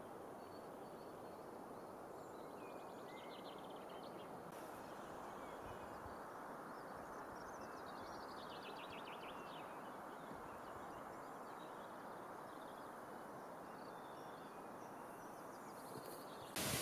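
Steady faint rushing ambience of a wooded mountain valley, with small songbirds singing faintly over it: short trills a few seconds in and again about halfway. Just before the end a much louder steady rush cuts in.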